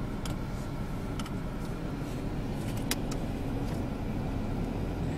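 Steady low rumble of a car running, heard from inside its cabin, with a few light clicks or rattles, the clearest about three seconds in.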